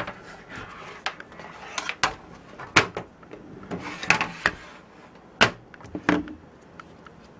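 Handling noise from a PC case panel with fans mounted on it being moved and worked on by hand: a series of irregular sharp knocks and clicks, the loudest about three seconds and five and a half seconds in, with a short rustle around four seconds in.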